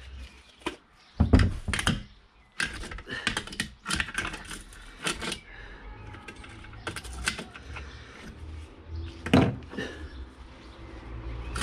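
Metal hand tools and sockets clattering and knocking as someone rummages through a toolbox for a ratchet and socket, with a few heavier knocks among quick irregular clicks.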